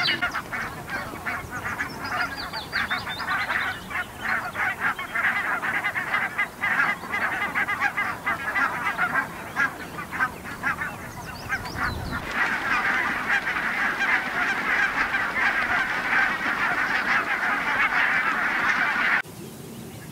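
A large flock of geese calling all at once, a dense chatter of many overlapping calls. About twelve seconds in it changes to a thicker, steadier clamour, and near the end it drops off suddenly.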